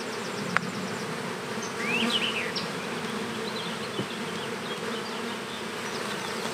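Honeybees buzzing steadily over an opened hive during a frame inspection. A sharp click comes about half a second in, and a brief chirping sound about two seconds in.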